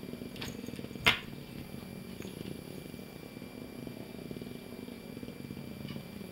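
American Shorthair cat purring steadily, with a single sharp click about a second in.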